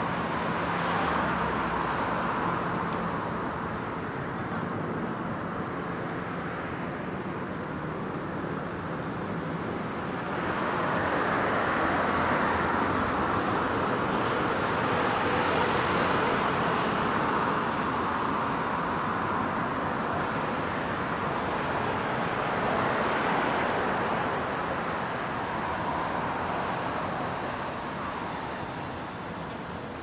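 Road traffic: a steady wash of passing vehicles that swells louder for several seconds about a third of the way in.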